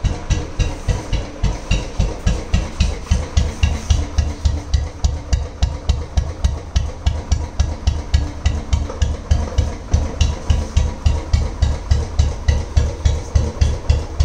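Royal Enfield Classic's single-cylinder UCE engine idling with a slow, even 'duk duk' exhaust beat, about four beats a second.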